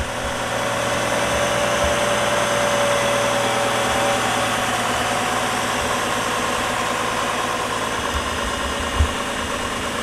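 2004 GMC Envoy's engine idling steadily and smoothly, with no audible misfire now that water has been cleared from the cylinder 4 spark plug well and ignition coil: the engine sounds good. A brief knock about nine seconds in.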